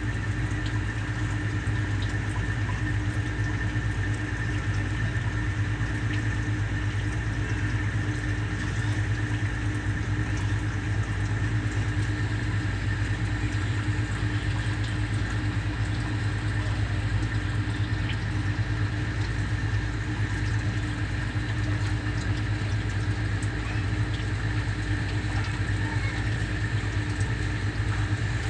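Steady mechanical hum, low and unchanging, with a fainter steady higher whine above it.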